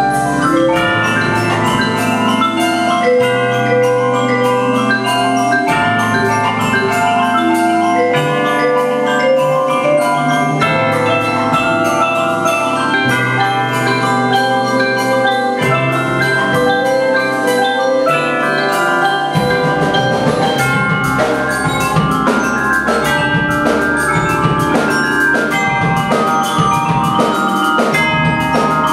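A percussion ensemble of marimbas, xylophones and vibraphones plays a fast melodic piece, with electric bass underneath. About two-thirds of the way through, a drum kit comes in with a steady beat.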